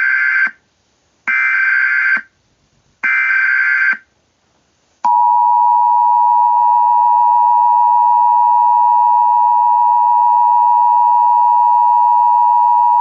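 Emergency Alert System alert tones: a digital header signal sounded in three bursts of about a second each, with a second's pause between them, then from about five seconds in the steady two-tone EAS attention signal, held unbroken.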